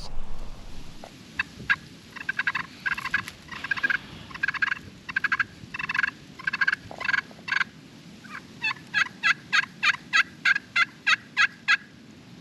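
Turkey calling: loud clusters of rapid rattling notes for several seconds, then a run of about a dozen evenly spaced yelp-like notes, about four a second, that stops shortly before the end.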